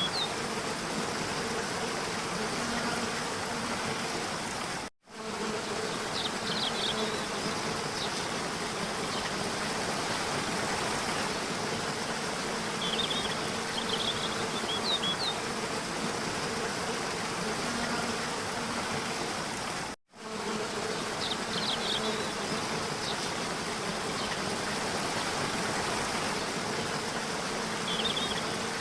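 Steady buzzing of insects such as bees, with short clusters of high bird chirps every several seconds. The sound cuts out abruptly for a moment twice.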